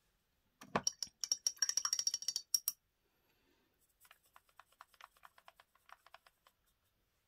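A paintbrush clinking against the water pot as it is rinsed, a cluster of sharp clicks with a ringing high tone about a second in. Then a quick run of light ticks as the brush is worked in a gold watercolour pan to pick up paint.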